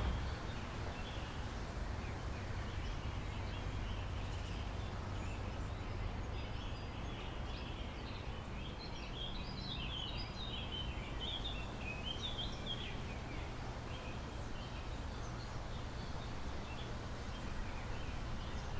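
Street ambience: a steady low rumble, with small birds chirping in a busy cluster from about six to thirteen seconds in.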